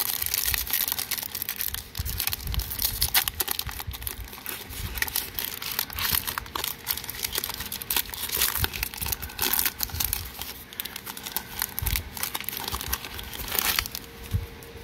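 Foil Magic: The Gathering booster pack wrapper crinkling and tearing as it is ripped open by hand, in irregular crackly bursts throughout.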